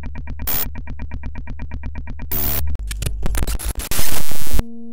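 Electronic logo-intro music: a fast synthesizer pulse, about nine beats a second, over a steady bass, with noise sweeps. It breaks into glitchy digital stutters and a loud blast of noise about four seconds in, then cuts to a steady electronic tone.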